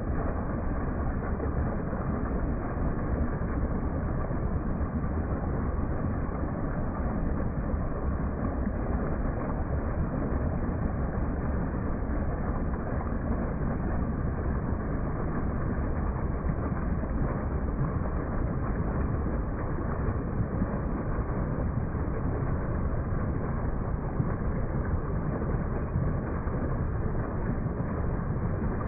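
Small waterfall pouring over rocks into a pool: a steady, unbroken rush of water, deepest in the low end.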